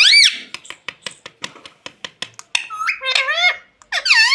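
Pet ringneck parakeet calling: a loud, shrill call that rises and falls at the start, then a quick run of short clicks. About three seconds in comes a burst of squawky chatter, and another shrill call follows near the end.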